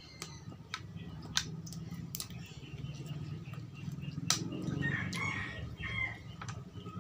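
Close-up eating sounds: sharp clicks and crunches as food held in the hands is bitten and torn apart. A steady low hum runs underneath, and a few short, higher-pitched calls come in about five seconds in.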